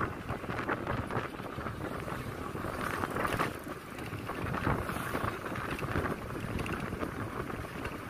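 Wind buffeting the microphone from a moving vehicle, with an uneven rush and low rumble of road and engine noise.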